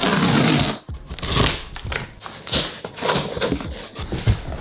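A knife slicing through packing tape on a large cardboard box: a loud tearing rasp for most of the first second. After it comes a run of cardboard scrapes and rustles as the flaps are pulled open.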